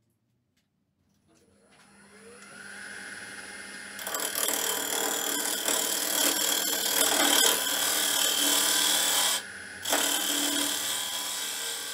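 A wood lathe motor comes up to speed with a rising hum. About four seconds in, a hollowing tool begins cutting the inside of the spinning red algarrobo (carob) wood blank, making a loud, steady hiss and rasp of shavings peeling off. The cut stops for a moment a little after nine seconds in, then carries on.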